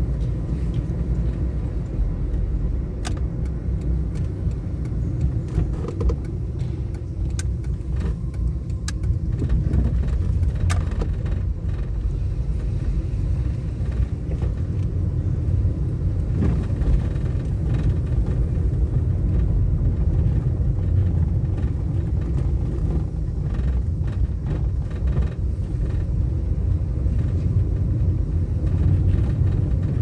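Steady low road and engine rumble of a Nissan March (Micra) driving, heard from inside the car, with a few light clicks and rattles mostly in the first ten seconds or so.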